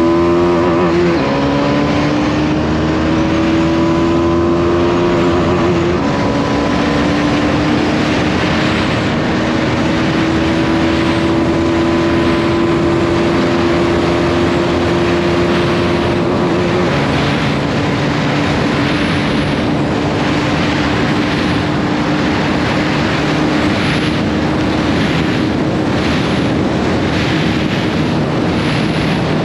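Bajaj Dominar 250's single-cylinder engine on its stock exhaust, running under way. Its pitch climbs through the gears and drops back three times as it shifts up, then holds steady.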